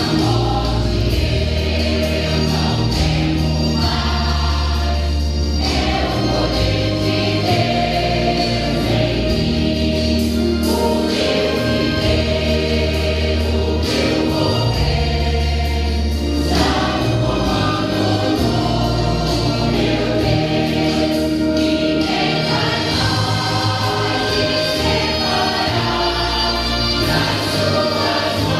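Church choir singing a gospel hymn of praise with instrumental accompaniment and a held bass line.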